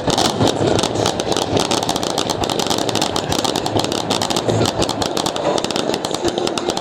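Fireworks finale barrage: a dense run of rapid crackling bangs that merge into a continuous rumble.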